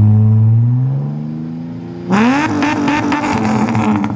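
Holden VX Commodore's 3.8-litre V6 being revved: the revs sink over the first two seconds, then a sharp blip about two seconds in that is held high with a harsh clatter. The engine is knocking and worn out, due to be pulled.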